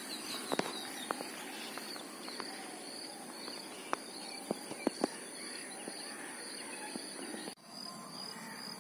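Outdoor ambience of steady high insect buzzing and faint repeated chirping, with several sharp clicks scattered through the first five seconds. The sound drops out briefly about seven and a half seconds in.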